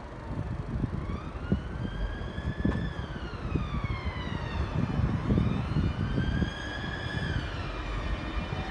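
Class 365 Networker electric multiple unit pulling away, its traction inverters whining in a stack of pitches that rises, falls back, rises again and falls once more as the train gathers speed. Underneath is a low rumble from the wheels on the track.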